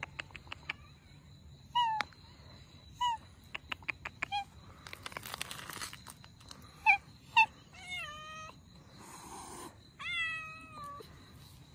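Cats meowing: a series of short meows, each falling in pitch, then two longer drawn-out meows near the end. Sharp clicks come between the early meows, and there is a brief rustle near the middle.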